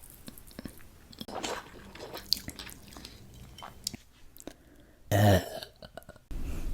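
Faint clicks and rustles, then about five seconds in a woman burps once, short and loud.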